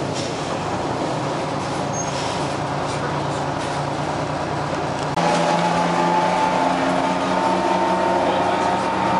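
The Detroit Diesel 6V71N two-stroke diesel engine of a GM New Look bus running steadily under way, heard inside the passenger cabin. About five seconds in, the drone suddenly gets louder with a clearer, steadier engine note, heard from the rear seats over the rear-mounted engine.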